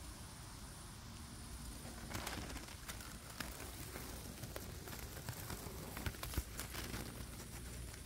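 Tall grass and plant stems rustling and crackling close against the microphone as it moves through the undergrowth, a run of dry crackles from about two seconds in until near the end, over a steady high hiss.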